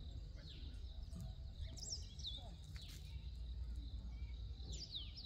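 Small birds chirping: short high calls, several sweeping downward, about every second, over a steady low background rumble.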